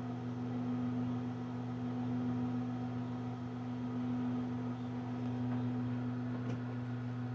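Steady low electrical hum from mains-powered equipment, unchanging throughout.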